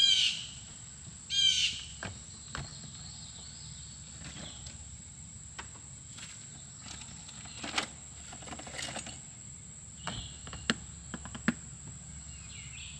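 Insects keep up a steady high-pitched drone in the humid evening, with two loud bird calls in the first two seconds. A few sharp clicks and knocks are scattered through the rest.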